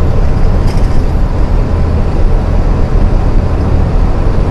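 Heavy truck's common-rail diesel engine and road noise heard from inside the cab while driving at a steady speed: an even, loud low drone.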